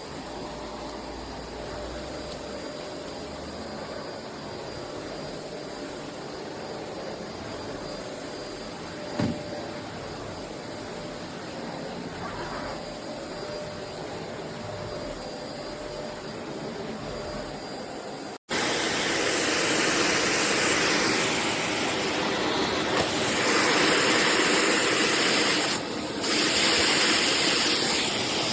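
Eureka Whirlwind NEN110C bagless canister vacuum cleaner running with a steady hum, with one short knock about 9 seconds in. After an abrupt cut a little past halfway, it is louder, a full rushing hiss of suction air.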